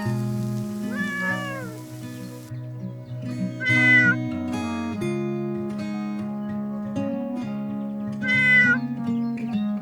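Cat meowing three times, about a second in, around four seconds in and near the end, the last two louder and higher, over background music of sustained notes.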